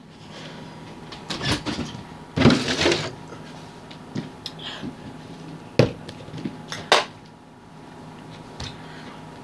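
A few sudden knocks and clatters of household objects being handled over a steady low hum, with two sharp knocks about six and seven seconds in. A loud breathy rush comes about two and a half seconds in.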